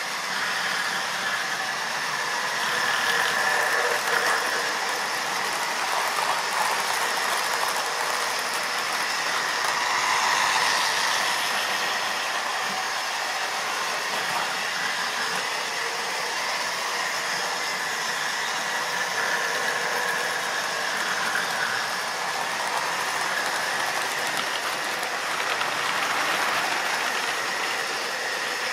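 OO-gauge model trains running on the layout: the steady whir of small electric motors and the rattle of metal wheels on the track.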